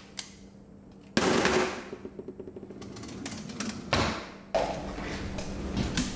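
A wooden kitchen drawer slid shut with a sudden loud knock about a second in, followed by smaller rattles and knocks, then a cupboard door being opened near the end.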